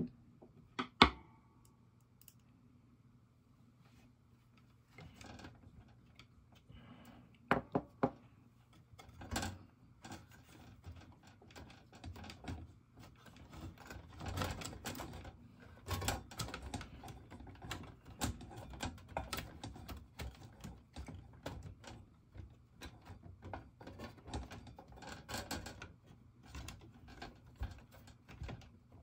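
Hands handling the wire-harness connectors and metal chassis of an Aiwa AD-3150 cassette deck: a sharp click about a second in, a few more clicks, then a long run of small clicks, taps and rustles as the connectors and wires are worked by hand.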